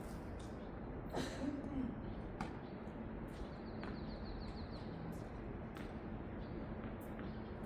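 Tennis balls struck by racquets during play, a sharp pop every second or so at uneven spacing, over a steady background hum.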